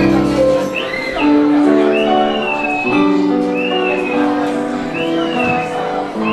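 Instrumental introduction of a song: sustained chords under a short, arching high melody phrase that recurs about once a second, with no singing yet.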